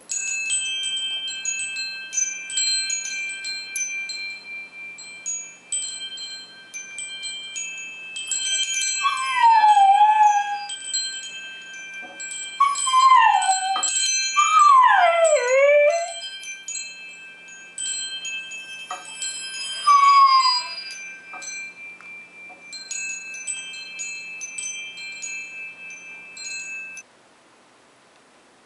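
Wind chimes ringing, with a dog howling along to them in several long howls, each falling in pitch, around a third, a half and two thirds of the way in. The chimes stop shortly before the end.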